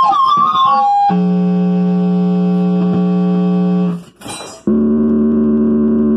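Music of long held, keyboard-like tones: sliding pitches in the first second, then a steady held chord, a short break about four seconds in, and another held tone after it.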